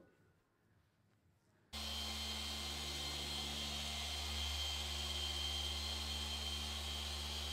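Near silence at first. About two seconds in, an electric machine polisher cuts in and runs steadily, with a low hum, a high whine and hiss, its foam pad working the car's paint.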